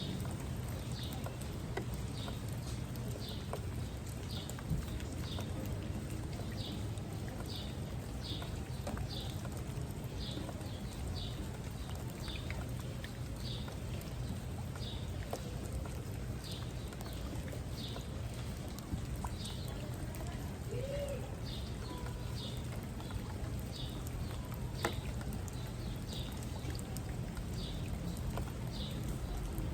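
Steady rainfall with a short, high chirp repeating about once or twice a second, from a bird or insect.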